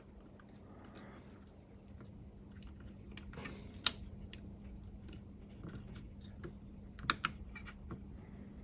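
Scattered small plastic clicks and taps as a capacitor is swapped in a component tester's ZIF socket and clamped in, the sharpest clicks about four and seven seconds in. A faint steady hum runs underneath.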